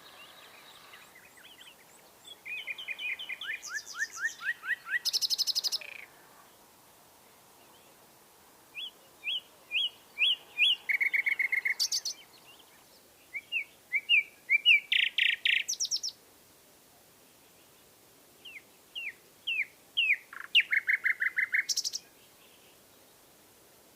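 Common nightingale singing in four separate phrases with pauses of a few seconds between them. Each phrase is a run of short repeated notes that ends in a fast trill.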